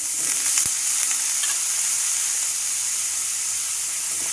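Food sizzling steadily as it fries in hot oil in a pan, with a single knock just under a second in.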